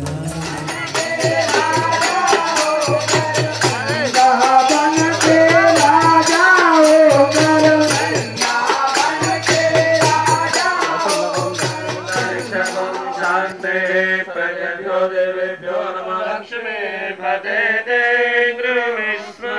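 Devotional chanting sung to music, with rattling percussion keeping time; the rattle drops out about two-thirds of the way through, leaving the singing and its accompaniment.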